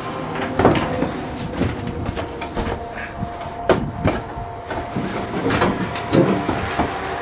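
Cadillac 4.9-litre V8 idling steadily on a cold start, with several sharp knocks and clunks over it, about one a second.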